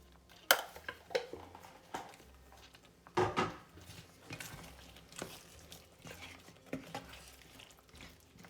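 A spoon knocking and scraping against a cooking pot as a curry sauce is stirred. There are a few sharp knocks, the loudest about half a second in and around three seconds in.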